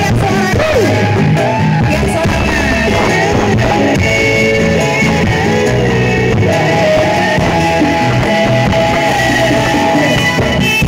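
Dangdut song playing loudly, with a singer's voice over the band.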